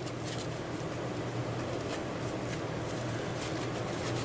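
Light scratching and rubbing sounds, scattered and faint, over a steady low hum.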